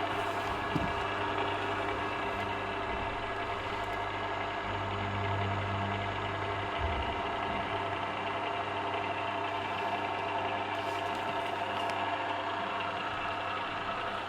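Two AC electric gearmotors of a heavy-duty swing gate opener running together, driving both gate leaves open during the control panel's self-learning cycle: a steady hum.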